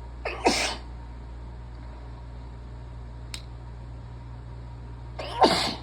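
Two loud human sneezes about five seconds apart, one just after the start and one near the end, each rising to a sharp explosive peak.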